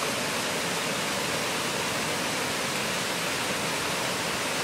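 A steady, even rushing noise with no distinct clicks, pops or other events.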